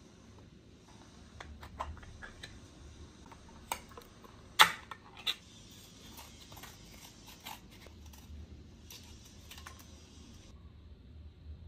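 Sharp clicks and taps of opened tin cans being handled and food cartons being snipped open with scissors, the loudest click a little under five seconds in. A low steady hum runs underneath.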